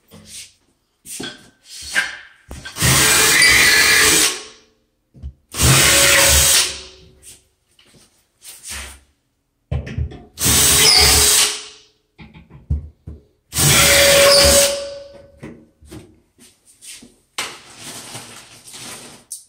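Ryobi cordless drill running in four loud bursts of a second or two each, driving screws to fasten a wire closet shelf to the wall. Short clicks and knocks of the tool and shelf being handled come between the bursts.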